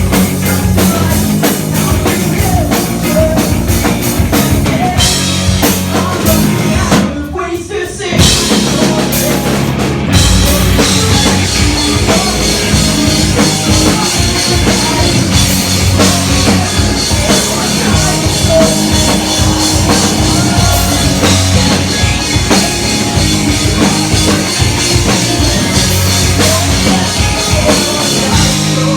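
Rock band playing a pop-punk cover song, with drum kit and guitars. The music drops briefly about seven seconds in, then the full band comes back in.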